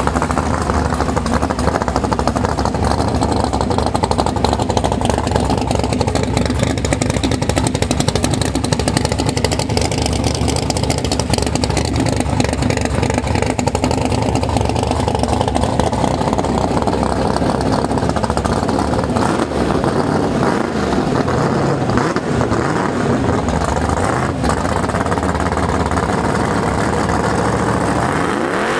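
Drag-race Ford Mustang's engine running steadily at idle, with small rises and falls in pitch past the middle.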